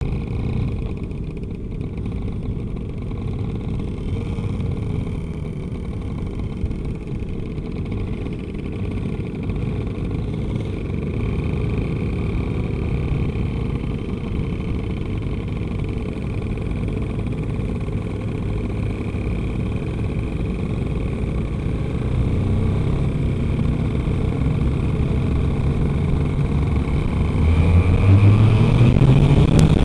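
Two-stroke TaG racing kart engine, heard from the driver's seat, running at low, steady revs while following another kart, then revving up with rising pitch near the end as the green flag waves for the race start.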